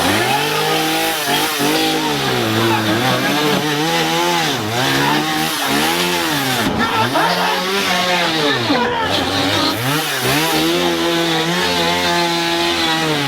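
A small engine revving up and down over and over, its pitch dipping and climbing back roughly once a second.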